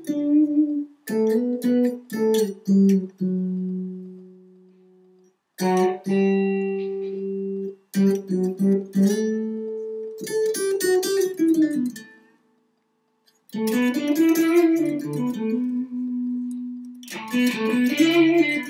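Electric guitar played on its neck humbucker with the tone control turned down: short lead phrases with string bends and a held note that rings out and fades, broken by a brief pause about twelve seconds in.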